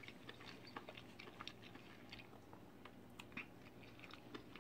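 Faint, close-up chewing of a mouthful of burger: soft, wet mouth clicks scattered irregularly throughout.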